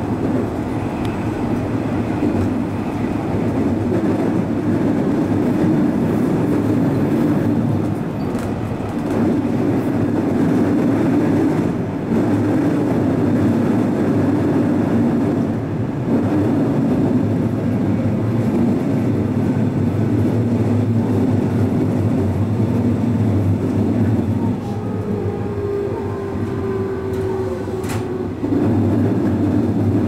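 Electric train running on the rails, heard from just behind the driver's cab window: a steady rumble of wheels and track. Near the end a faint falling whine comes in, then a sharp click, and the running noise grows louder again.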